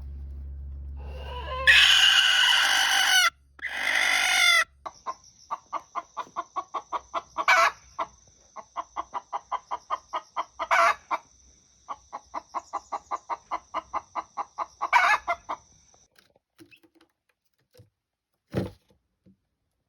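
Araucana chicken calling: two loud drawn-out squawks, then a long run of rapid clucks about four a second, with a louder, sharper note every few seconds, stopping about three-quarters of the way through.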